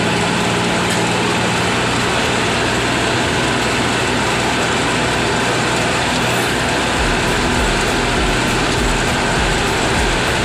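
Farm tractor's engine running steadily as the tractor drives along a road, heard from the driver's seat as a loud, even mechanical noise. From about seven seconds in, an uneven low rumble comes and goes underneath.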